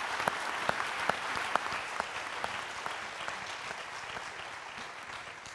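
Audience applauding, the clapping thinning out and dying away toward the end.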